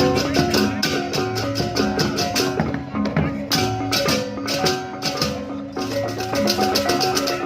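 Music: held melodic notes over a fast, steady rhythm of light, rapid percussion strokes.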